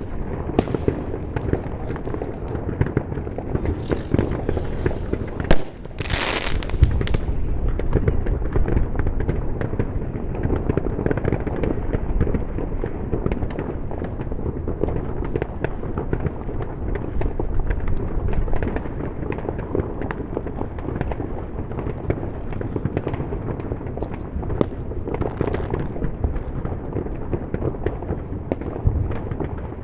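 Many fireworks and firecrackers going off at once: a dense, continuous crackling and banging. One sharp, loud bang comes about five and a half seconds in, followed by a brief hissing burst.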